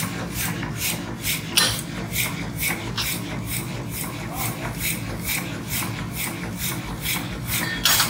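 Rhythmic rasping strokes of a tool on metal, evenly spaced at about three a second, with a steady low hum underneath. One stroke about one and a half seconds in is louder than the rest.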